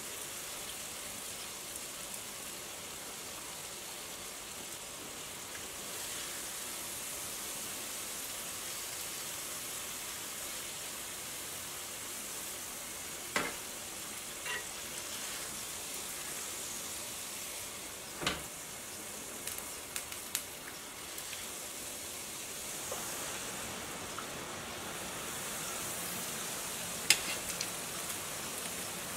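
Doughnuts deep-frying in hot oil: a steady sizzle, with a few sharp clicks scattered through the middle and one loud click near the end.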